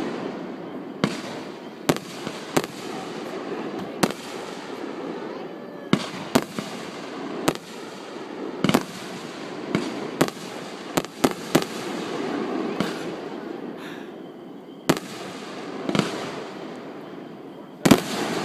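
Aerial fireworks bursting overhead: a string of sharp bangs at irregular intervals, roughly one a second. A tight cluster of loud bangs comes near the end as a multi-shot volley fills the sky.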